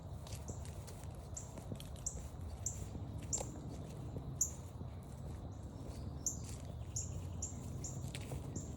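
A small bird repeating a short, high call at uneven intervals of about half a second to a second, over soft footsteps on the trail and a low steady background rumble.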